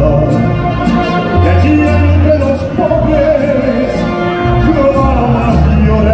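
Live mariachi ensemble playing: violins and trumpets over a deep bass line and a steady strummed beat.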